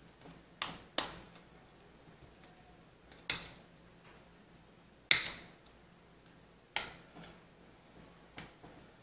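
Hard plastic parts of an OtterBox Defender phone case clicking and snapping as they are handled and fitted together: about six sharp separate clicks, the loudest about a second in and about five seconds in.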